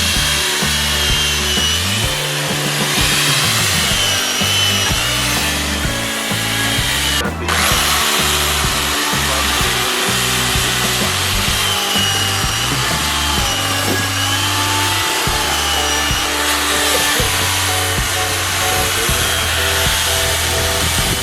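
Power tool cutting into a block of ice, a steady grinding hiss with a motor whine that wavers in pitch as the load changes, with a brief break about seven seconds in.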